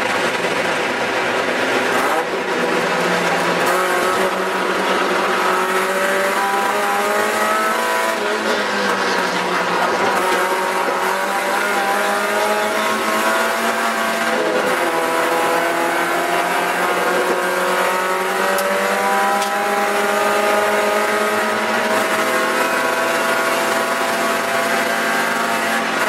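Spec Miata race car's four-cylinder engine heard from inside the cockpit under hard acceleration, its revs rising in long climbs broken by a few sudden drops.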